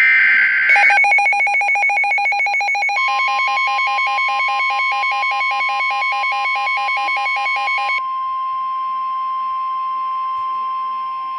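Emergency Alert System tones for a severe thunderstorm warning. A short screech of data-header tones comes first, then rapid pulsing electronic beeps. About three seconds in, a long steady alarm tone joins them and carries on alone after the beeping stops around eight seconds in.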